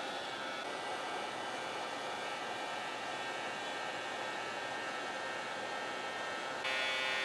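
Hot air rework station blowing a steady hiss with a faint fan whine onto a BGA chip, reflowing its solder joints; near the end the airflow gets louder and the whine stronger.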